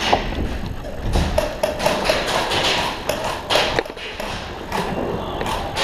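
Airsoft gunfire: many irregular sharp cracks, taps and knocks.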